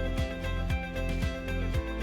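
Background music with a steady beat, about two drum strikes a second, under sustained instrumental notes.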